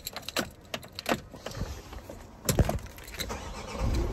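A key ring jangling and clicking as the key goes into the ignition of a Nissan Interstar van, with a single thump about two and a half seconds in. Near the end the van's diesel engine starts and settles into a low idle.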